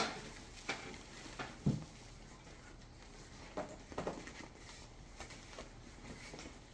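A few faint, scattered clicks and soft knocks of things being handled while unpacking a box, with quiet stretches between.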